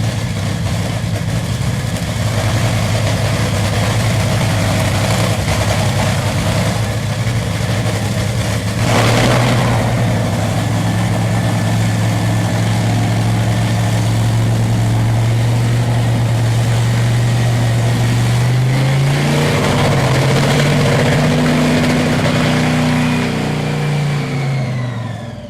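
Supercharged nitromethane-burning V8 of a Top Fuel drag car idling steadily with a lumpy, loud note, with a short sharp blip of the throttle about a third of the way in. Near the end the engine is revved up and down a few times before the sound fades out.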